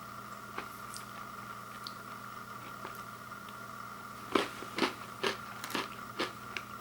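Someone chewing a crunchy Oreo chocolate sandwich cookie, about two crunches a second starting about four seconds in, over a steady faint hum.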